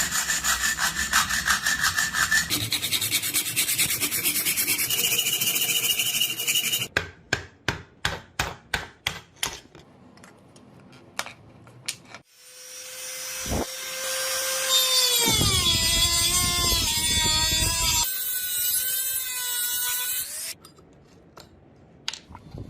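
Hand tool rasping on a steel drill bit in rapid, continuous strokes, then a few slower separate strokes. After that a motor's whine starts, drops in pitch about halfway through, and stops near the end.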